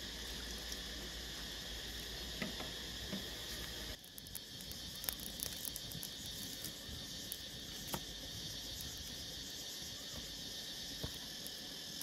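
Steady chirring of insects in the background. From about four seconds in, sparse clicks and crackles from a small fire of dry twigs and sticks.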